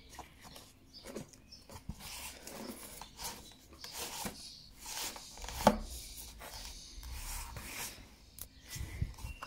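Handling noise of a cardboard model rifle: hands rubbing, scraping and gripping the cardboard, with scattered small clicks and one sharp knock a little past the middle.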